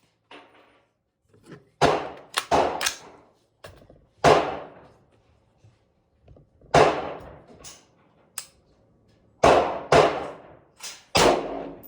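AR-15 rifle firing semi-automatically, about ten shots at uneven spacing, some in quick pairs half a second apart, each a sharp crack with a short echoing tail.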